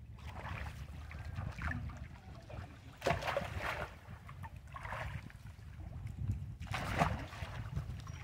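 Water splashing and sloshing as long-tailed macaques swim and play in a pool, in about four bursts, the loudest about three seconds in and near the end, over a low wind rumble on the microphone.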